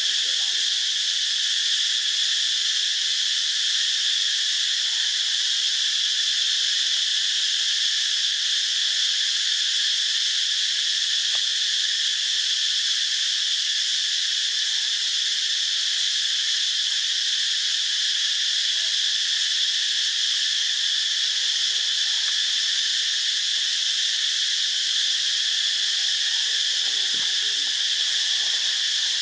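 Insects in the forest keep up a steady, unbroken, high-pitched drone.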